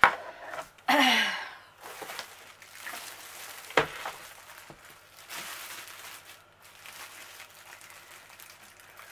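Clear plastic wrapping crinkling as a plastic-bagged lap desk is turned over and handled on a table. A sharp click right at the start, a brief loud sound falling in pitch about a second in, and a knock a little under four seconds in as the desk comes down on the table.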